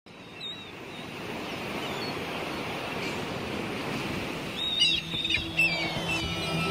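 Steady wash of the sea with bird chirps, one near half a second in and a cluster around five seconds. Music with held low notes comes in near the end.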